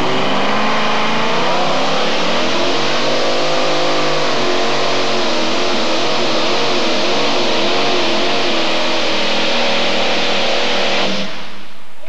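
Twin-engine modified pulling tractor running flat out under load as it pulls a sled. Its loud engine note rises at the start, then wavers up and down, and cuts off suddenly near the end.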